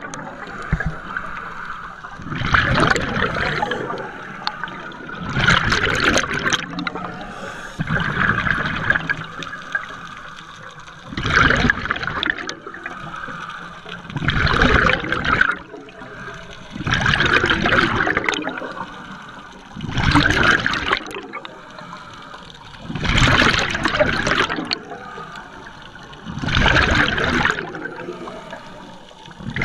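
A scuba diver's regulator breathing underwater: a loud gush of exhaled bubbles about every three seconds, ten times in a row, with a quieter hiss in between.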